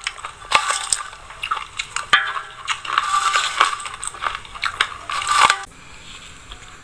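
Small metal spoon scraping and clinking against a stainless-steel bowl as it scoops loose sesame seeds, the bowl giving short metallic rings after the sharper clicks. The clatter stops suddenly about five and a half seconds in.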